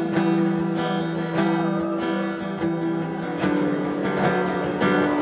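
Acoustic guitar strummed in a steady rhythm, with no singing.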